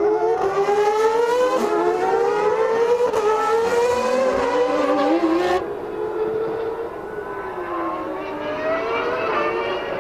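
1996 Formula One cars' engines running at high revs, their pitch climbing in steps through upshifts and dropping back, with more than one car heard at once. About halfway through the sound cuts abruptly to a quieter, duller engine note that falls and then climbs again.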